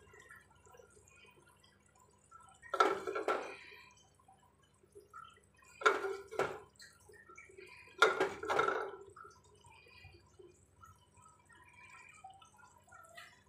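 Pea curry gravy simmering in an aluminium kadai, with small, steady bubbling pops. Three louder sudden clatters come from the pan about three, six and eight seconds in.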